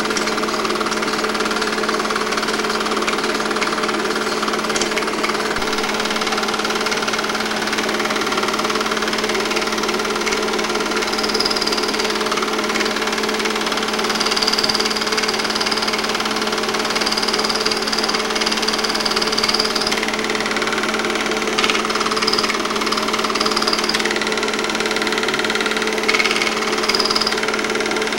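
Film projector running: a steady motor hum with a fast mechanical clatter from the film advance. A high whine comes and goes in the second half.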